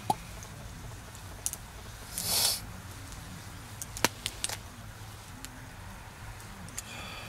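Fire piston being worked between attempts: a few sharp clicks and knocks from the piston and its cylinder, and a short rush of air about two seconds in.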